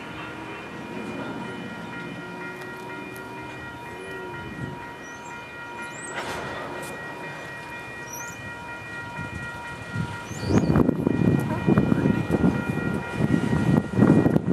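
Freight cars rolling slowly along the track during switching, a steady rumble with a faint steady high ringing tone over it. About ten seconds in, a much louder, irregular, jagged rumbling takes over.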